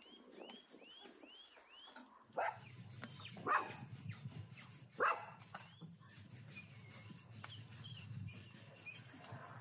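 A bird gives five quick rising-and-falling chirps, then three loud animal calls come about a second apart, with higher bird twittering between them. A low steady hum starts with the first call.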